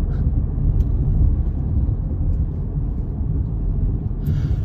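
Steady low rumble of a car running, heard from inside the cabin, with a brief hiss near the end.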